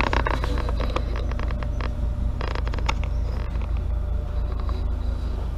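Steady low machine rumble with scattered clicks and knocks over it.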